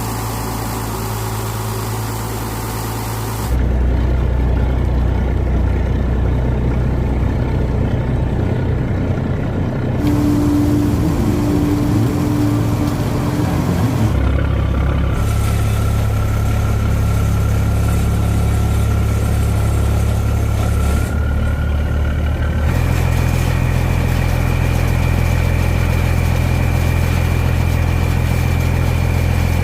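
Boat engine running steadily, its drone shifting abruptly in pitch and tone a few times.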